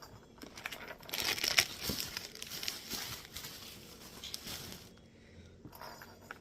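Packaging crinkling as the toys are handled and unwrapped, starting about a second in and dying away after about four seconds.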